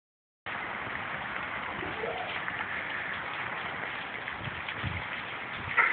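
Steady hiss of rain falling and dripping, with a few soft low thumps and a sharp click near the end.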